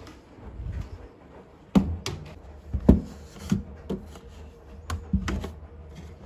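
Household items being handled and set down: a series of sharp knocks and clunks, about seven in all, coming irregularly from about two seconds in.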